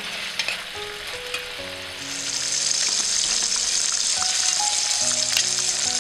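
Herbs and tomatoes being stirred in a steel pot, with small clicks over a light sizzle. About two seconds in, a louder steady sizzle takes over: a whole coated tilapia deep-frying in hot oil.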